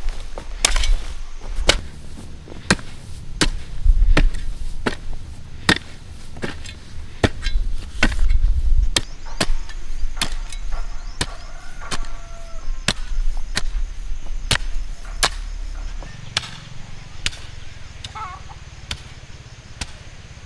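Repeated chopping strikes, an even run of sharp knocks at about two a second.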